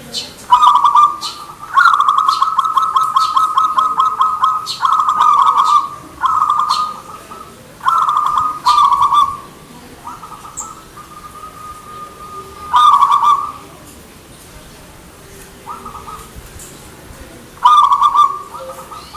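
Zebra dove (perkutut) cooing: repeated phrases of fast, rippling coo notes, one long run of about three seconds near the start, then shorter phrases spaced further apart.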